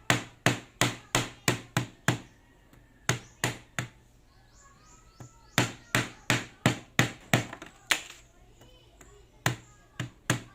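Peeled fresh ginger being pounded to crush it: runs of sharp knocks against a hard surface, about three a second, with short pauses between the runs.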